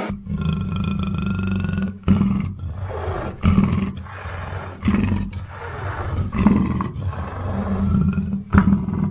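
Black panther growling at close range in a string of harsh calls, each about a second or so apart.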